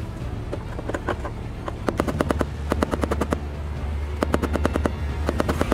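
Rapid hammer blows on the metal lock ring of a 2017 Nissan Sentra's fuel pump, driving the ring counterclockwise to loosen it. The strikes come in quick runs of several sharp metallic hits, with the fastest runs about two and about four and a half seconds in.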